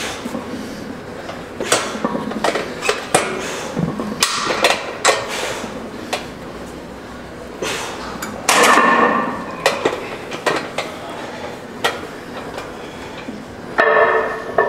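Irregular sharp metallic knocks and clinks of gym equipment as a lat pulldown machine's bar and weight stack are handled before a set.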